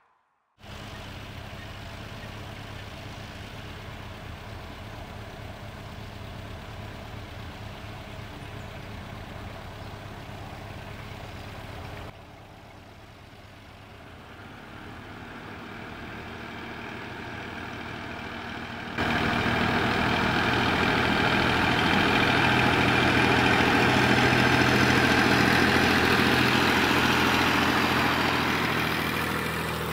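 Farm tractor's diesel engine running steadily, then a tractor hauling a loaded straw trailer, louder, swelling and then fading near the end.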